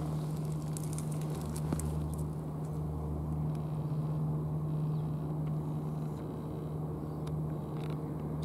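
Steady low drone of an idling engine, one even pitched hum with its overtones. A few faint ticks and crackles come through about one to two seconds in.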